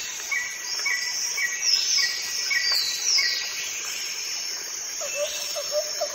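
Outdoor nature ambience of insects and birds: a steady high insect chirring, a short chirp repeated about twice a second, and several falling whistled bird calls in the middle. About five seconds in, a fast, lower pulsing call starts.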